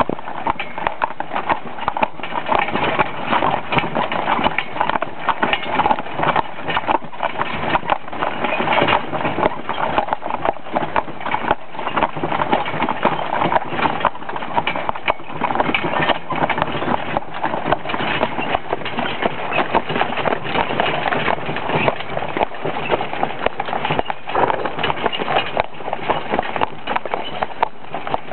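A team of two draft mares in harness pulling a wagon, their hooves clip-clopping on a soft dirt road. Steady knocking and rattling of harness and wagon runs along with the hoofbeats.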